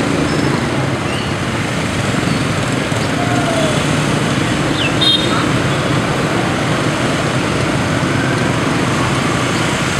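Dense motorbike and scooter traffic: many small engines running and passing at once in a steady mixed drone. A brief high beep comes about five seconds in.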